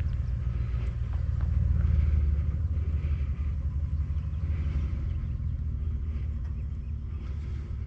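Low, uneven rumble of wind buffeting the microphone, swelling about two seconds in. Behind it, the faint, rising and falling buzz of the Flightline F7F-3 Tigercat model's twin electric motors and propellers as it flies by at a distance.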